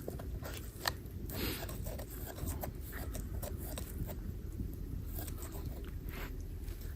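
Knife blade shaving and scraping wood, an irregular run of short scrapes and small cracks.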